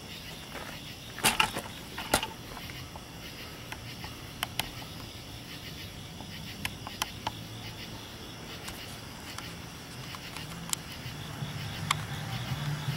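Outdoor night ambience with insects chirring steadily, a few sharp clicks, loudest a little over a second in and again around two seconds in, and a low hum that grows near the end.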